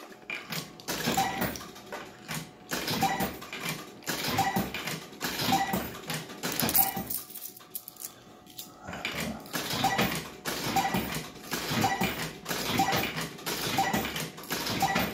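50p coins being fed one after another into a Bell-Fruit Cash Explosion fruit machine, each clinking as it drops through the coin mechanism. A steady run of metallic clinks, about two a second, with a break of about two seconds midway.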